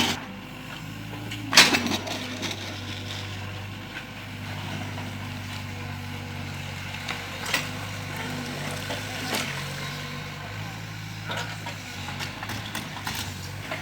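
Mini excavator engine running steadily, with a few sharp knocks now and then, the loudest about a second and a half in.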